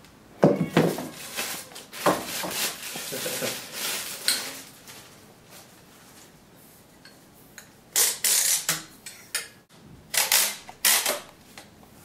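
Handling noises as a vacuum cleaner's metal telescopic tube is unpacked: clinks, knocks and rustling of plastic wrapping, in two busy spells with a quieter pause between them.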